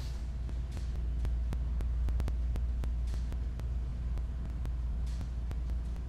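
Steady low electrical or ventilation hum in a gym room, with scattered light ticks and a soft breath-like hiss about every two seconds.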